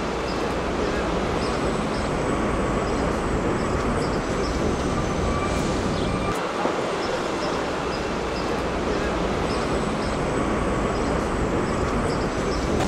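Steady city street noise: traffic rumbling, with a murmur of people's voices.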